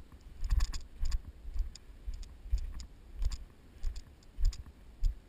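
A hiker's footsteps at a steady walk, nearly two steps a second, each a dull thump with a crisp crunch, on forest ground of dry grass and patchy snow.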